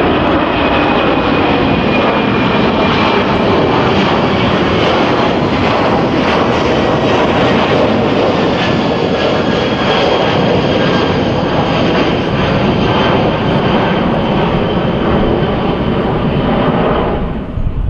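Qantas Airbus A330 twin-jet climbing out overhead after takeoff: loud, steady jet engine noise with a faint whine that slowly falls in pitch as the aircraft passes. It cuts off just before the end.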